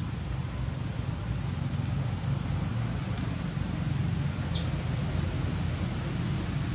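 Steady low outdoor rumble, with a faint short high chirp about four and a half seconds in.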